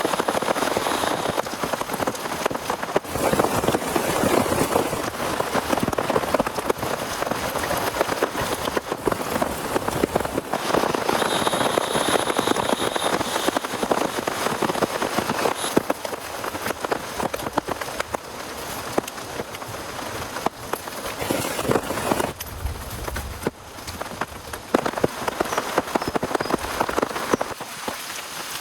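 Heavy rain falling steadily onto a surface, a dense patter of many individual drop hits. The intensity changes abruptly a few times, and a brief low rumble comes near the end.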